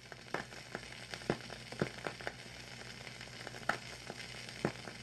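Vintage-style crackle effect like an old record or film soundtrack: irregular pops and clicks over a steady hiss and low hum, slowly getting louder.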